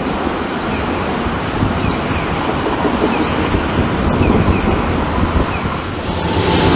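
Steady city road-traffic noise from a wide avenue: a low rumble under an even hiss, with wind on the microphone. About six seconds in it grows louder and hissier.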